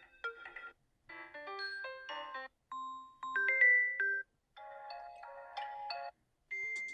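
Samsung Galaxy M04 default ringtones previewed one after another. About five different short electronic melodies, each cut off after a second or so, with brief silences between them.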